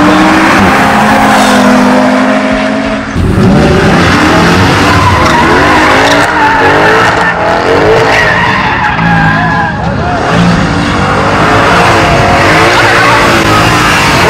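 A Mercedes C-Class sedan drifting. The engine revs climb for about three seconds and drop off abruptly, then its rear tires squeal in a long, wavering screech as it slides.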